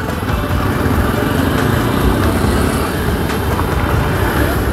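Motorcycle engine running at low speed in dense, slow-moving city traffic, with the steady rumble of the surrounding vehicles.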